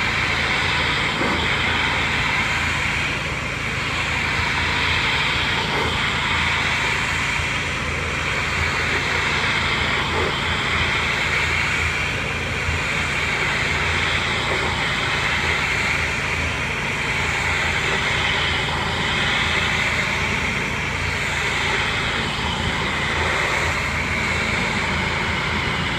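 Pressure washer running steadily, its motor droning under the hiss of the high-pressure water spray on house siding; the hiss swells and fades every few seconds.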